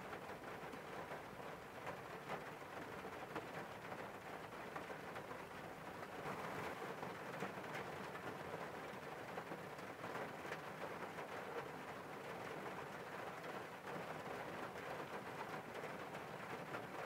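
Rain hitting a car's windscreen, heard from inside the car: a steady hiss of rainfall with many small drop ticks, growing slightly heavier about six seconds in.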